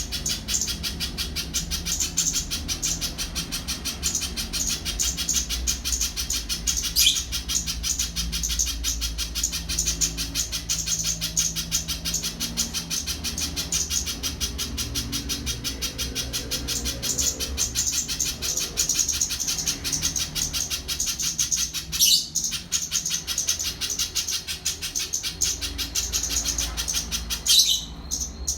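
Spiderhunter singing a long, unbroken string of rapid high chirping notes, with a few sharper, louder notes here and there, over a steady low hum.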